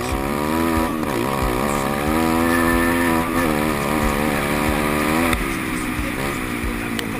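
150 cc pit bike's single-cylinder four-stroke engine revving up and down under the rider's throttle, its pitch dipping about a second in, climbing again, and falling away about five seconds in.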